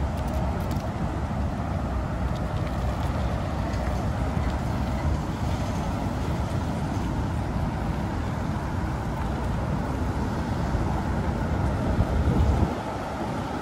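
Steady low rumble of a bicycle riding along a rough park path: wind buffeting the microphone mixed with tyre noise on the pavement. The rumble drops off suddenly near the end.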